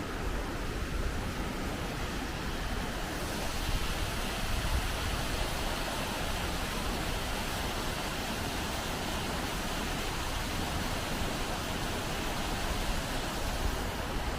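Waterfall rushing: a steady, even roar of falling water that turns brighter and hissier about three seconds in.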